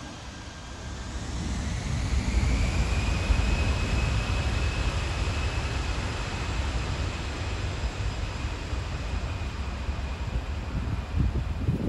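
Twin-engine jet airliner's engines spooling up to takeoff thrust. A whine rises about a second in and then holds steady over a low rumble as the aircraft rolls down the runway. Wind buffets the microphone near the end.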